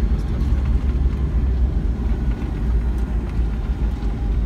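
Cabin noise of a Boeing 757-200 rolling along the runway after landing: a loud, steady low rumble of the wheels on the pavement and the engines.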